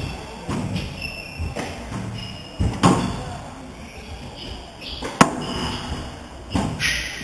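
Squash rally: a string of sharp knocks as the ball is struck by rackets and rebounds off the court walls, the loudest about five seconds in, with shoes squeaking on the wooden floor between shots.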